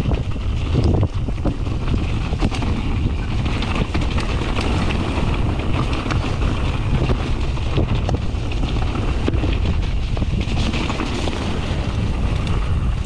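Wind buffeting a GoPro microphone as a Santa Cruz Nomad full-suspension mountain bike rolls down a dirt singletrack, with a steady low rumble of tyres and wind. Frequent short clicks and rattles come from the bike over the bumpy trail.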